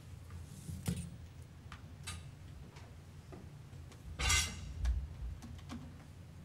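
Handling noises at a lectern picked up by its microphone: a few light knocks and clicks, and a short rustle about four seconds in, over a low steady hum.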